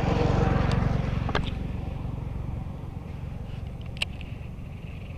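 A motor vehicle passing on the road, likely a motorcycle: its low engine rumble swells in the first second and fades over the next few seconds. A few sharp clicks come from the baitcasting rod and reel being handled, the loudest about four seconds in.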